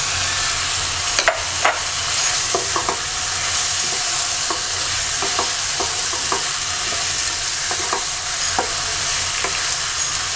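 Hilsa fish heads and pieces sizzling in hot oil and fried spice paste in a pot, with a spatula clicking and scraping against the pot now and then as it is stirred.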